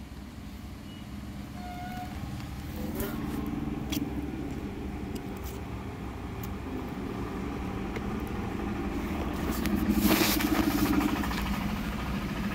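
A motor vehicle's low engine rumble, building to its loudest about ten seconds in, with a few sharp clicks of handling.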